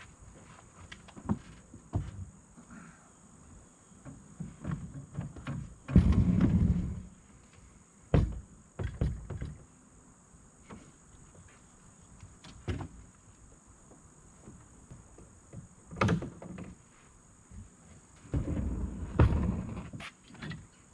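Polyethylene hull of a Hobie Outback kayak knocking and scraping against a pickup's tailgate and bed rails as it is lowered by hand. Scattered thunks, with two longer scraping spells, one about six seconds in and one near the end.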